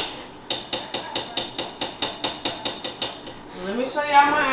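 Saucepan of chili on an electric stovetop giving quick, regular light clicks, about four a second. A brief rising vocal sound comes near the end.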